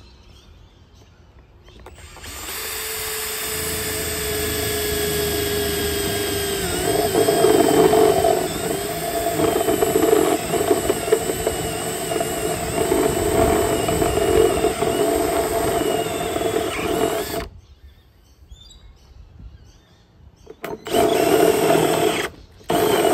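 Makita cordless drill with a step drill bit boring through a hollow PVC fence post. The motor runs steadily for about fifteen seconds, its whine dropping as the bit bites into the plastic, then stops. Two short bursts of drilling follow near the end.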